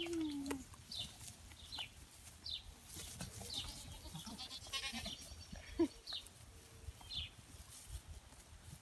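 Dairy goats bleating: one falling bleat right at the start and a short one about six seconds in, with short high chirps repeating in between.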